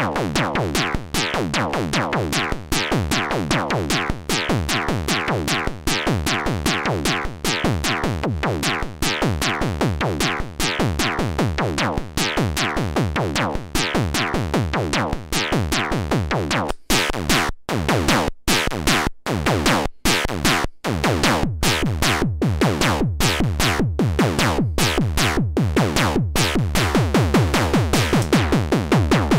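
Moog DFAM analog percussion synthesizer playing its eight-step sequence: a fast, even stream of pitched percussive synth hits, both oscillators mixed, with the sequencer changing the second oscillator's pitch from step to step. A little past halfway, a few brief silent gaps break the pattern, then the hits carry on.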